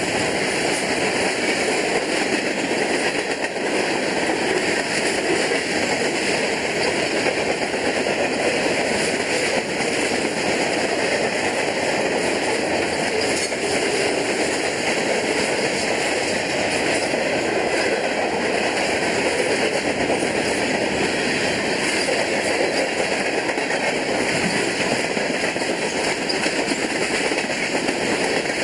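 Freight train's boxcars, refrigerator cars and autoracks rolling past close by at speed: a steady rumble and rattle of steel wheels on rail, with a few faint clacks.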